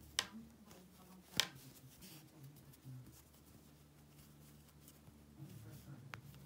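Size 3.5 metal knitting needles clicking as garter stitch is knitted: two sharp clicks in the first second and a half, and a lighter one near the end, over a faint low hum.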